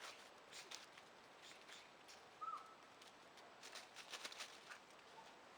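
Quiet autumn forest: faint scattered crackles and ticks, with one short high bird chirp about halfway through.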